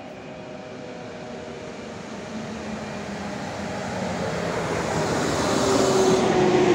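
České dráhy class 151 electric locomotive hauling a passenger train, approaching and passing close by. Wheel-and-rail noise with a steady tone grows steadily louder, peaking near the end as the locomotive goes past.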